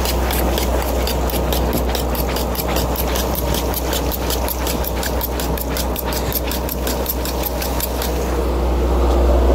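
A fishing trawler's diesel engine runs steadily with a low hum, and water pours from a deck washdown spout. A rapid, even ticking about five times a second runs over it and stops about eight seconds in.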